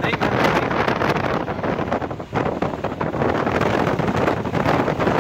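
Strong wind buffeting the microphone in repeated gusts, over a steady low engine rumble of a moving vehicle.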